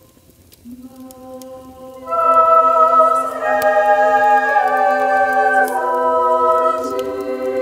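Choral music: voices holding long sustained chords, quiet at first and swelling sharply louder about two seconds in.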